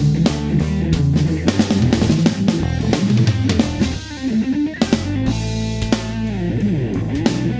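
Ibanez electric guitar playing quick single-note runs over a backing track with drums. A little past halfway the runs give way to held notes that slide downward in pitch.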